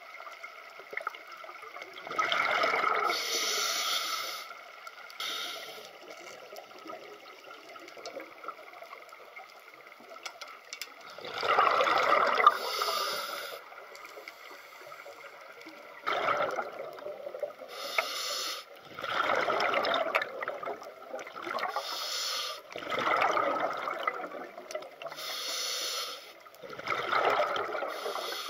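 Scuba diver breathing through a regulator underwater: a hiss on each inhale and a rush of bubbles on each exhale, about six breaths.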